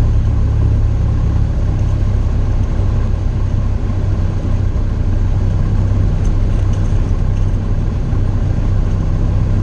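Light aircraft engine and propeller running steadily at low power, a loud, even low drone.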